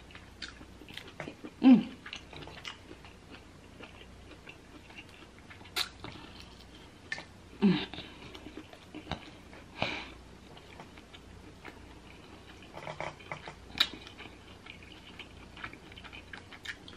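Close-miked hand peeling of a sauce-soaked boiled jumbo prawn: scattered small clicks and wet crackles of shell breaking and pulling away. Two short low hums, about two and eight seconds in.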